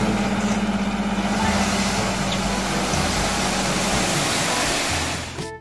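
Dump truck's diesel engine running while the hydraulic hoist tips the raised bed, with a steady hum and the rushing of the soil load sliding out over the tailgate. The hum fades about four seconds in, and everything cuts off suddenly near the end.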